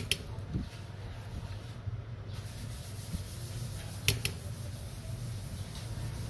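A steady low hum, like a fan running, under light handling noise from a circuit board and tools on a workbench. There are sharp clicks right at the start and two more about four seconds in.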